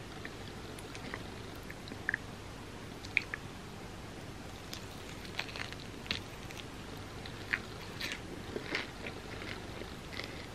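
Biting and chewing into a large chocolate-coated bar packed with peanuts and peanut-butter puffed rice: scattered short crackles and clicks, coming more often in the second half.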